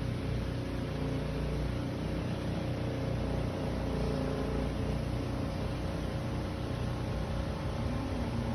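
Steady mechanical rumble and hum from a car, recorded to show an abnormal noise (異音) that comes up when something on the car is raised or lowered.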